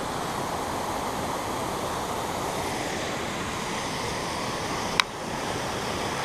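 Steady rush of a creek waterfall, an even wash of noise, with one sharp click about five seconds in.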